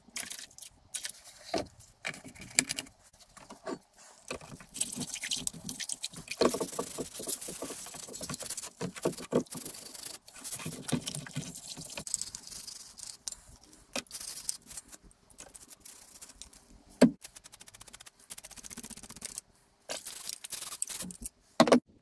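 Vice parts being handled and scrubbed in a plastic tray of degreaser: irregular scraping, liquid sloshing and clicks, with sharp knocks of metal against the tray, the loudest a little past halfway through and again near the end.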